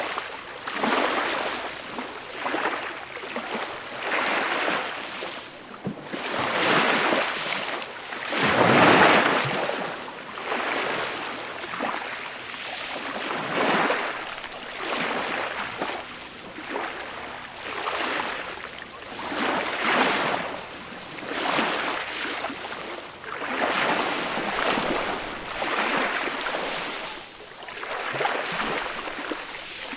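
Small waves breaking and washing up the shore, one after another every second or two, with a larger wave breaking about nine seconds in.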